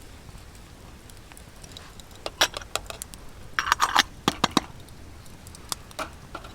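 A quick run of sharp clicks and knocks from small hard objects, the loudest a short clinking jingle about four seconds in, with a few lighter ticks near the end.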